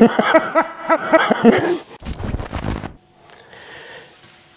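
A man's voice in a quick run of short pitched bursts for about two seconds, followed by a brief scraping rustle of handling noise.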